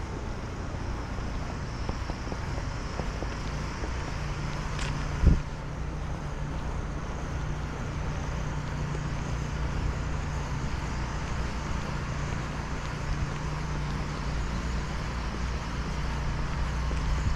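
City street traffic with a steady low engine hum, and one sharp thump about five seconds in.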